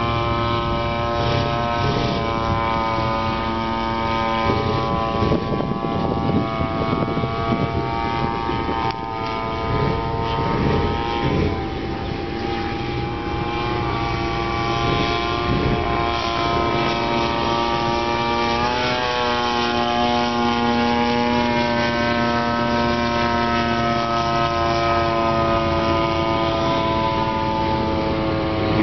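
Radio-controlled P-51 Mustang model's 60cc RCGF two-stroke gasoline engine drones steadily in flight overhead. Its pitch wavers a little and dips briefly a little over halfway through.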